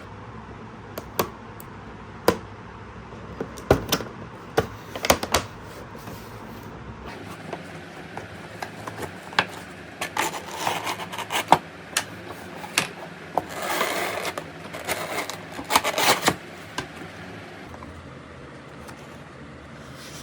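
A toy box and its packaging being handled and opened: scattered clicks and knocks, then bursts of rustling in the second half.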